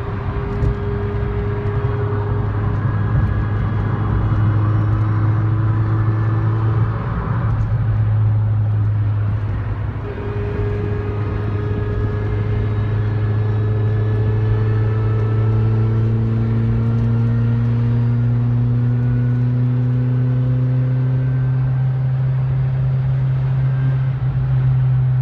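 Ford Fiesta ST under acceleration: a steady low drone of engine and road with a thin whine that climbs slowly in pitch as the car gains speed, most clearly from about ten seconds in. The owner suspects the whine comes from a bearing or the gearbox.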